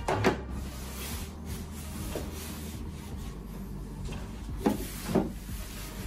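A plastic extension power strip and its cord being handled and set down on a wooden workbench: a clunk at the start, then two knocks about half a second apart near the end.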